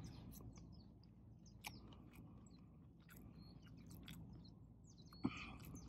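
Faint chewing of raw octopus poke: small crunchy, chewy mouth clicks, with one louder mouth sound near the end.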